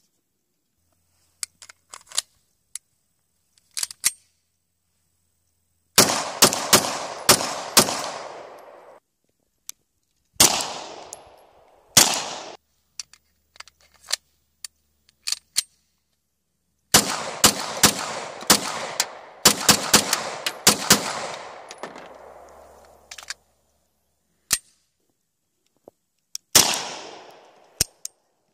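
Beretta 92FS 9mm pistol being fired: a few light clicks first, then a rapid string of shots, two single shots, a longer rapid string and one last shot near the end, each trailing off in an echo.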